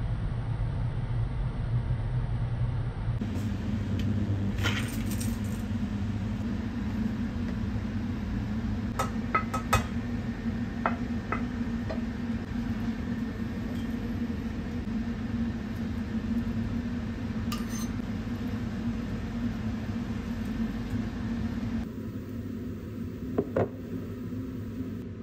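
Kitchen work sounds: occasional light clinks and taps of dishes and utensils over a steady low hum.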